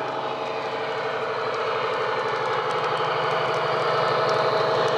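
Recorded Class 70 diesel engine sound played by the model's DCC sound decoder through its fitted EM1 speaker as the model locomotive runs past. It is a steady engine note with a fast pulse, getting a little louder towards the end as the locomotive comes close.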